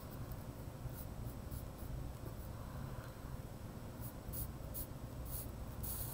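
Black Sharpie permanent marker stroking across paper as a thick line is inked in: a series of short strokes, more of them in the second half, over a low steady room hum.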